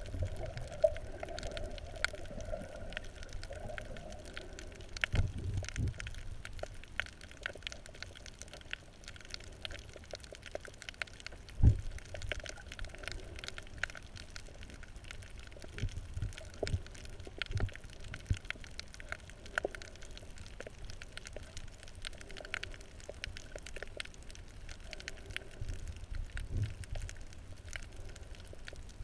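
Underwater sound picked up by a camera below the surface on a coral reef: a steady muffled water wash with scattered clicks and crackles throughout, and a few low thumps, the loudest about twelve seconds in.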